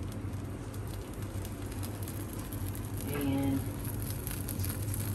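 Steady low hum with a faint hiss underneath. A short vocal sound comes about three seconds in.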